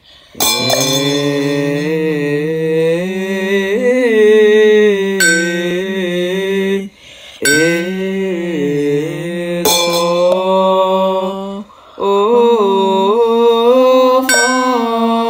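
Slow, drawn-out Chinese Buddhist liturgical chanting, the voice holding and bending long notes, with short breaks for breath about seven and twelve seconds in. A small ringing bell is struck every few seconds.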